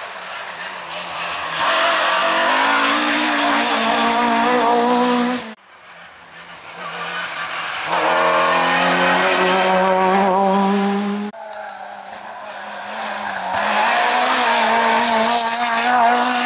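Rally cars passing one after another at high revs, three separate passes that each build up and then cut off abruptly; the middle one is an Opel Adam rally car.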